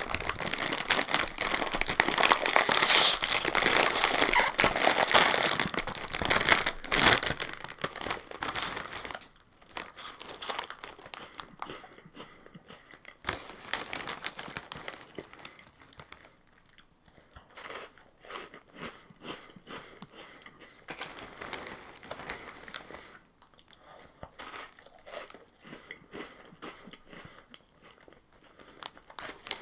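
A bag of Chester's Flaming Hot Fries is torn open and crinkled loudly for about the first nine seconds. Softer, scattered rustling of the bag and crunching of the fries being eaten follow.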